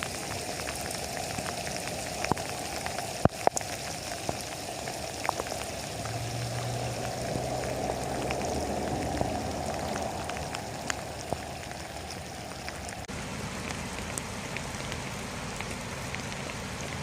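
Steady rain falling, with many individual drops ticking sharply on a surface. A faint low hum comes in briefly about six seconds in.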